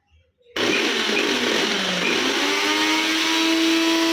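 Havells Segno 500-watt mixer grinder motor switched on about half a second in. Its whine dips, then rises in pitch and holds steady as it comes up to speed.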